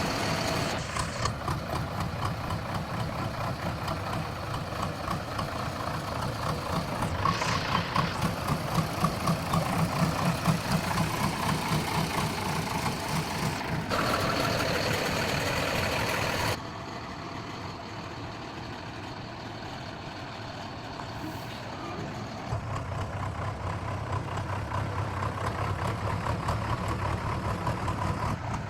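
Heavy diesel engines of a backhoe loader and a stuck lorry running and working, with the revs rising and falling; the sound drops suddenly about two-thirds of the way through, as at a cut.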